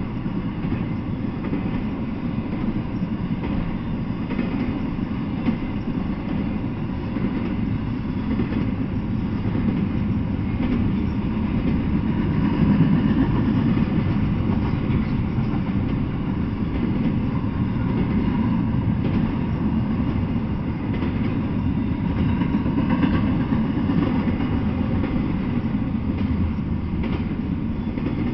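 Intermodal freight train of container-carrying well cars rolling past, a steady low rumble of steel wheels on the rails that swells slightly in the middle.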